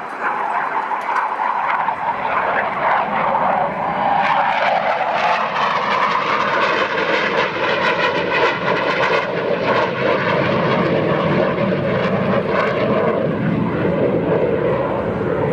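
Hawker Hunter jet fighter flying a display pass, its engine noise swelling about two seconds in and staying loud, with a slow shift in pitch as it moves past.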